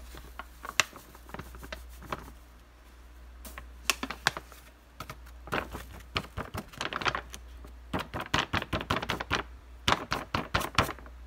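Packet of pancake mix crinkling and being tapped and shaken while its flour is poured out, giving irregular clusters of quick, sharp clicks that come thicker through the second half.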